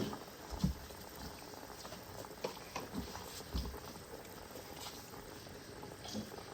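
Soft, scattered knocks and low thuds of pieces of cooked stockfish being put into a pot of cooking meat, over a faint steady background.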